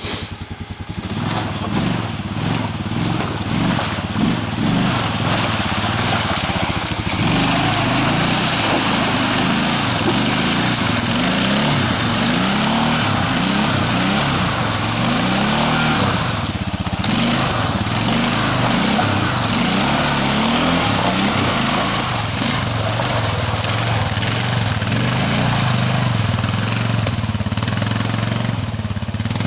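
Arctic Cat 454 ATV's single-cylinder four-stroke engine revving up and down over and over, with a brief drop about a second in and another just past halfway.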